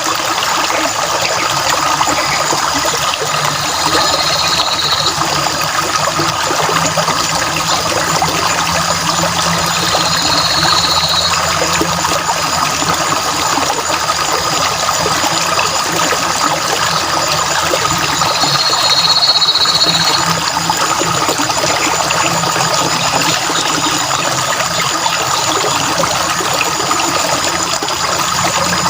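Stream water trickling and flowing steadily, with three brief, high, even-pitched bird notes at intervals.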